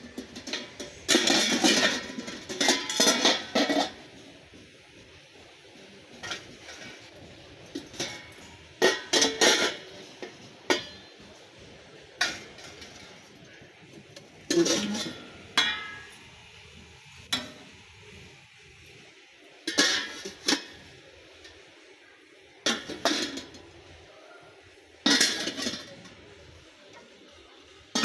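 Nonstick frying pans and a kadai knocking and clinking against wire shelf racks and each other as they are lifted and put back, in short bursts a few seconds apart.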